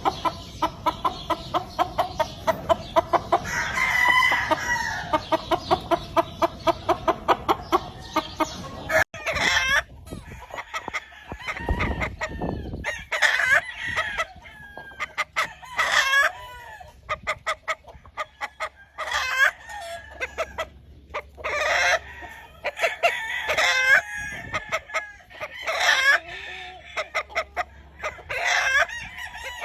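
Gamefowl roosters crowing over and over, several birds calling one after another. The first nine seconds hold a fast, even run of clucks before the crowing takes over.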